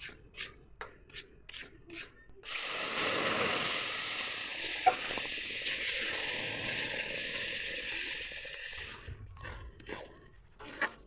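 Rice-flour halwa in a hot pan: a spoon clicks against the pan a few times, then a loud sizzle starts suddenly, runs for about six seconds and fades, and the spoon clicks again near the end.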